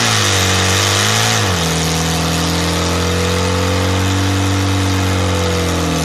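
Nitro-burning Top Fuel drag motorcycle engine running on its stand, blipped twice with the throttle, then settling into a steady idle about a second and a half in. Its pitch sags slightly near the end.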